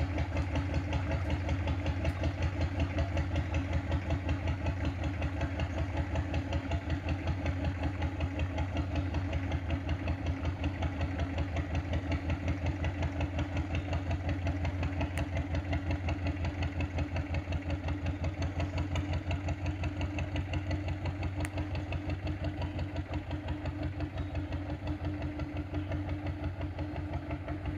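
Thai fishing boat's engine running steadily at low speed with a rapid, even chugging beat and a steady hum.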